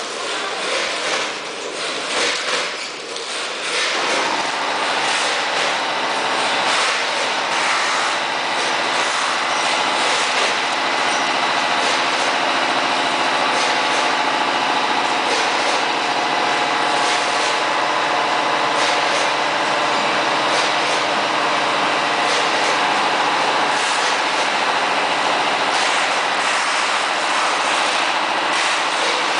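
Automatic vertical packing machine with a multihead weigher running: a steady mechanical hum with several held tones and light clicks. It is uneven for the first few seconds, then settles into the steady hum about four seconds in.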